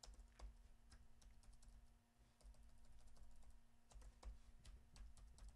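Faint, irregular keystrokes on a computer keyboard as a password is typed, over a faint steady hum.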